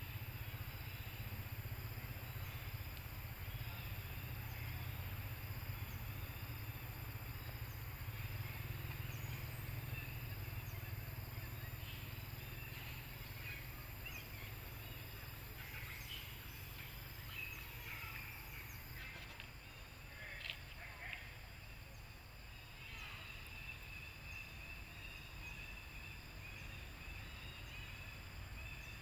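Outdoor ambience: a steady insect drone over a low rumble, with a few short chirps about halfway through.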